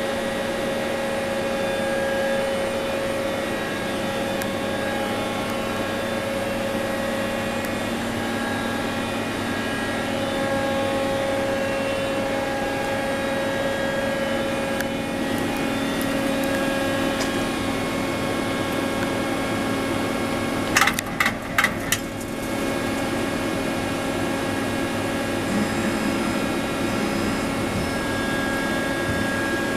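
Gildemeister NEF-CT 40 CNC lathe powered up and idling: a steady machine hum with several held tones. About two-thirds of the way in, a quick series of five or six loud clicks.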